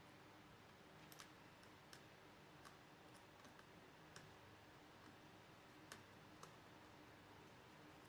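Near silence with a few faint, scattered clicks of small laptop parts being handled during reassembly.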